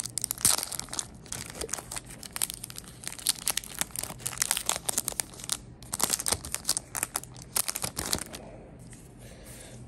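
Foil wrapper of a Pokémon TCG Evolving Skies booster pack crinkling and being torn open by hand: dense crackling for about eight seconds, quieter near the end.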